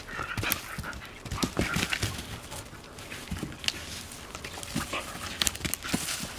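A collie-type dog romping with a stick on a forest floor: quick scuffling paw steps, with the stick knocking and scraping over the ground in short sharp clatters.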